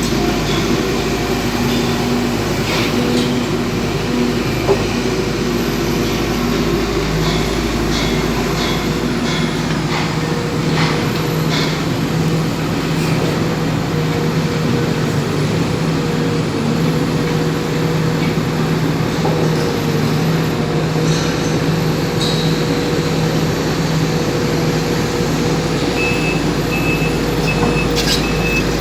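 Sumitomo SH210 hydraulic excavator's diesel engine running steadily under digging load, with scattered knocks from the bucket and arm. Near the end, a repeating beeping alarm starts.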